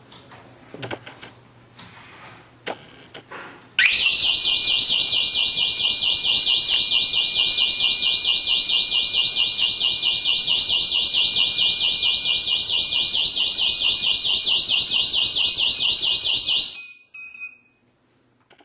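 Burglar alarm siren set off by a laser beam detector: a loud, high-pitched electronic siren with a fast warble that starts abruptly about four seconds in, runs for about thirteen seconds and then cuts off. A few light clicks come before it.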